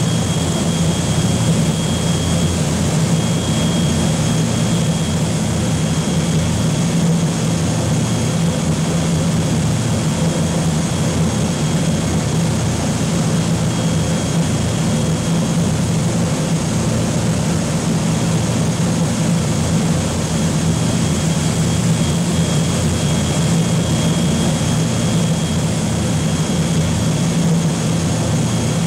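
Boeing B-29 Superfortress's four Wright R-3350 radial piston engines and propellers droning steadily in cruise flight, heard from inside the cockpit. A thin high whine comes and goes above the drone.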